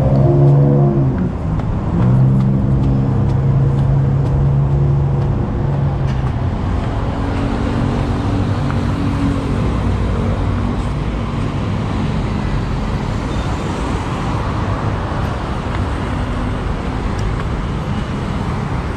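Busy city road traffic: vehicle engines running and passing over a steady wash of road noise, with a low engine hum most prominent in the first several seconds.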